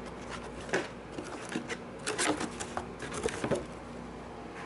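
Cardboard box being opened by hand and a motorcycle half helmet lifted out of it: irregular rustling, scraping and sharp knocks of cardboard flaps and the helmet shell being handled.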